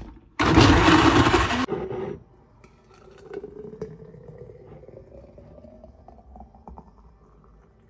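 A blender runs loudly for just over a second, starting about half a second in, and stops abruptly. Then a smoothie is poured into a glass, its pitch rising slowly as the glass fills.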